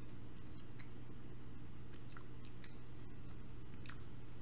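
Faint wet chewing and lip-smacking on barbecue chicken wings, scattered small mouth clicks over a steady low hum.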